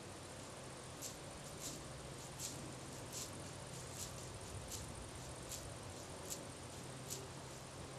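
Peacock butterfly's threat display: short, high hissing rasps made by its wings, repeating evenly about every three quarters of a second, a warning to a would-be predator.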